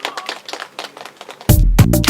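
A run of light, irregular sharp taps, then loud music with a heavy bass comes in suddenly about a second and a half in.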